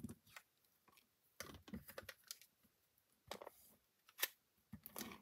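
Faint, scattered clicks and short rustles of card stock and a tape runner being handled on a tabletop.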